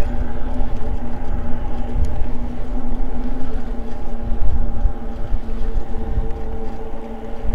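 Eahora Juliet e-bike riding along a paved trail: wind rushing over the microphone under a steady hum from the moving bike.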